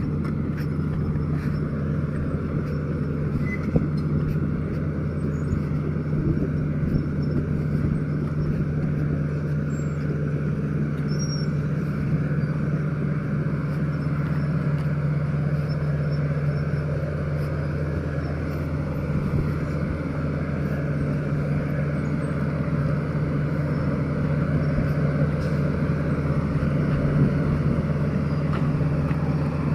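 Diesel engine of a heavy earthmoving machine running steadily, a low even drone that holds the same pitch throughout.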